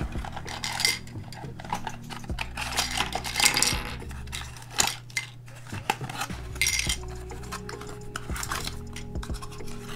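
Cardboard accessory box rustling as it is opened and handled, with many light clicks and clatters of small hard plastic skewb center caps tipped out onto a table.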